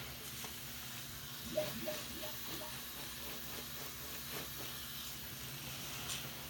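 Tap water running into a sink full of soap suds with a steady hiss, while a soapy sponge is squeezed by hand. About a second and a half in come four quick wet squelches, about three a second.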